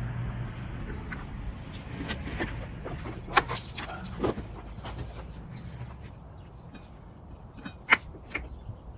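Scattered clicks and knocks of things being handled, over a low steady hum that fades about two-thirds of the way through; the sharpest knocks come about three and a half seconds in and near the end.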